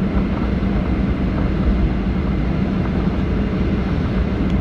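Steady cabin noise inside an airliner before takeoff: an even rumble with a constant low hum.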